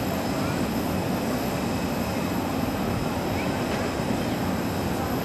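Steady, even jet engine noise from an Airbus A320-214 with CFM56 turbofans at the start of its takeoff, heard across the airfield as a low rumble.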